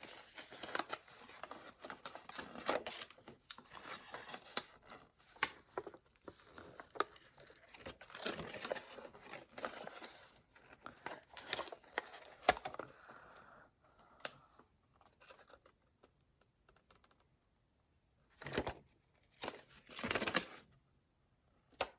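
Small packaging crinkling and rustling as it is handled and opened, with many small clicks. It dies down after about two-thirds of the way through, leaving three short rustles near the end.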